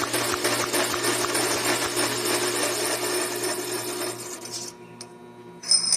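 A lathe cutting tool scraping into a spinning steel washer to cut a groove, over the steady hum of the mini metal lathe's motor. The cutting noise fades out about four and a half seconds in, leaving the lathe running, and a sharp metallic clink comes near the end.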